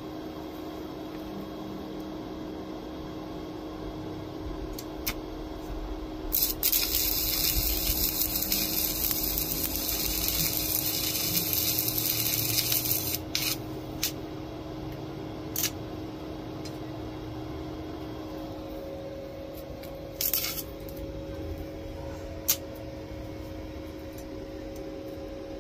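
Shielded metal arc (stick) welding with a 7018 rod on a cheap 110-volt welder: the arc burns with a steady hiss for about seven seconds, then several brief spits and snaps follow as the arc is struck again, which is sometimes difficult on this welder. A steady hum runs underneath.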